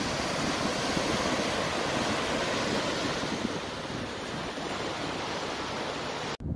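Gulf surf washing onto a sandy beach, a steady rushing of breaking waves, with wind buffeting the microphone. The sound drops out for a moment near the end.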